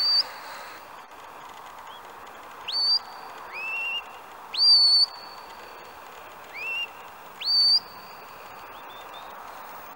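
Shepherd's whistle commands to a working sheepdog: about six short notes, each sweeping sharply up and then held. The notes alternate between a higher and a lower pitch, and the longest, loudest one comes about halfway through.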